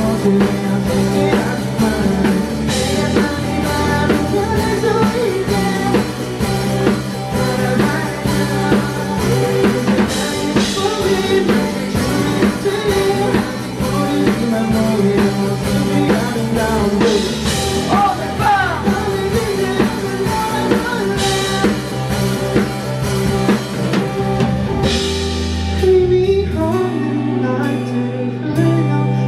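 A rock band playing live: drum kit, bass and guitars, with cymbal crashes every few seconds. About four seconds before the end the drums drop out and the band thins to a lighter passage.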